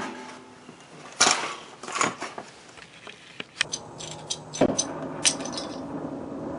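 Clicks and knocks of a small hand torch being handled and lit, then the torch flame catching about four and a half seconds in and burning with a steady hiss.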